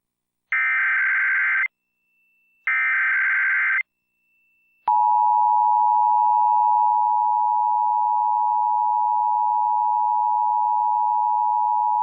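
Emergency Alert System SAME header: two bursts of screechy digital data tones, each about a second long and about a second apart. About five seconds in, the steady two-tone EAS attention signal starts and holds, announcing the test message that follows.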